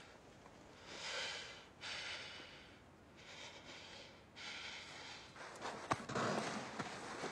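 A man's heavy, ragged breathing, a breath about every second, with louder scuffling and a few sharp clicks near the end.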